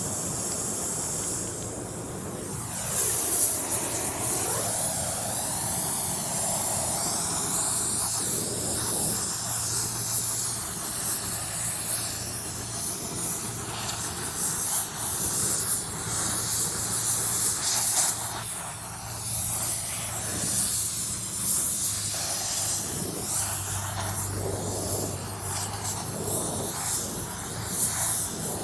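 Oxy-acetylene torch flame hissing steadily, setting in about three seconds in and swelling and easing as the flame is moved around a tractor flywheel's steel ring gear. The ring gear is being heated so that it expands enough to be fitted onto the flywheel.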